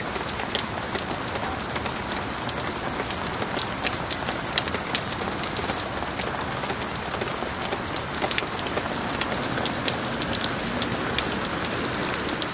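Steady rain falling on a flooded street and standing water: a dense, even hiss dotted with many sharp drop hits.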